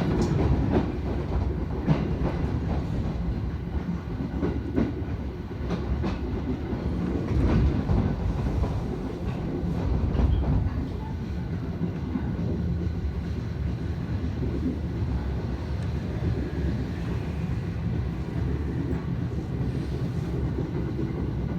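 Train running on the rails, heard from inside the passenger car: a steady low rumble with sharp wheel clicks over rail joints in the first several seconds, then a smoother rumble. The train is running slowly under a strong-wind speed restriction.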